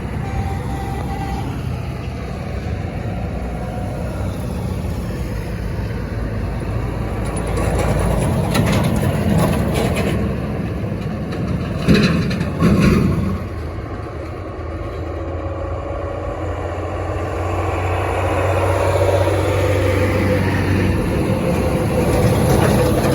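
Motor vehicle traffic on a road: steady engine and tyre noise, with vehicles swelling louder as they pass, most sharply around the middle.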